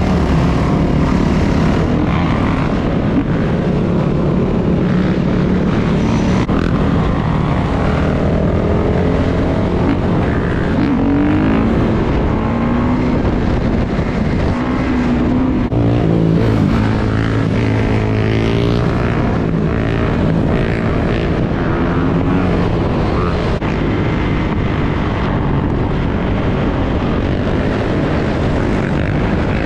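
Dirt bike engine running under way, its pitch rising and falling repeatedly as the throttle is worked, over a steady low rush.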